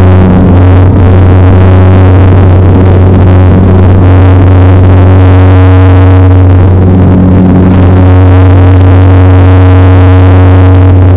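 Saab 340A's General Electric CT7 turboprop engines at takeoff power, heard from inside the cabin: a loud, steady propeller drone with a strong low hum and rushing noise as the aircraft lifts off and climbs.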